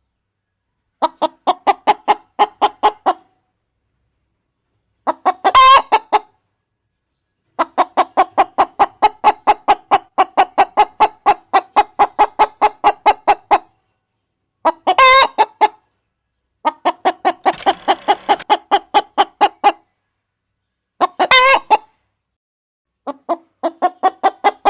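Hen sound effect: runs of rapid, even clucking at about four clucks a second, broken three times by a short, loud, harsh squawk, with brief pauses in between.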